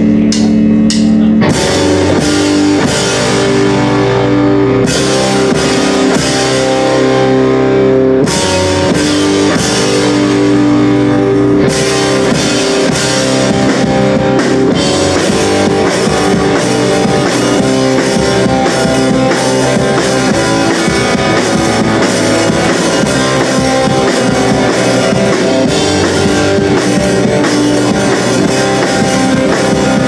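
Live rock band playing loud, with electric guitars and a drum kit. A held guitar chord rings for about the first second and a half before the drums and full band come in, and the cymbals play without a break from about twelve seconds in.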